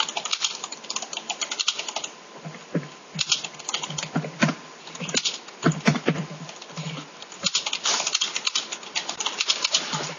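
Typing on a computer keyboard: rapid key clicks in several bursts with short pauses between them.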